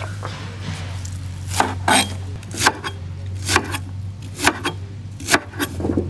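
A broad-bladed knife chopping spring onions on a cutting board: a sharp knock about once a second, over a low steady hum.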